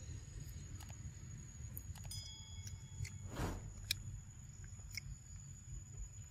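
Macaque biting and chewing soft ripe fruit: scattered wet clicks of bites and mouth sounds, with a louder swell of noise about three and a half seconds in. A steady high thin tone and a low rumble lie under it.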